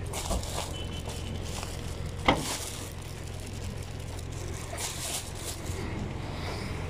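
Steady low hum of a car cabin with the engine running, with plastic carrier bags being handled and one sharp knock a little over two seconds in.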